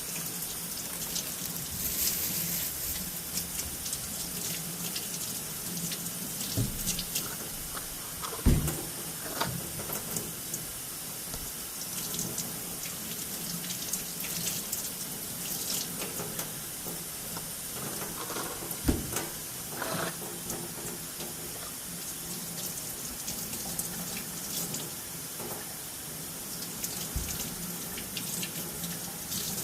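Steady rush of running water, with a few short knocks and handling sounds.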